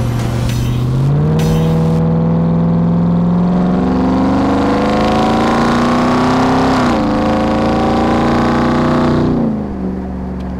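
Ram 1500 TRX's supercharged 6.2-litre V8 accelerating hard: the engine note climbs steadily, drops at a gear change about seven seconds in, climbs again, then falls away as the throttle is released near the end.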